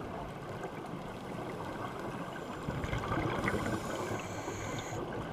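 Underwater ambient noise through the camera's housing: a muffled rushing with gurgling, swelling about three seconds in.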